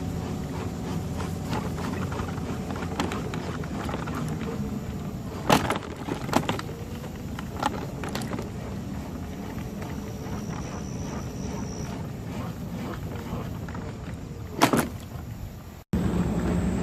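Steady rolling rumble of a ride along a trail, broken by several sharp knocks or clicks, with a brief cut near the end.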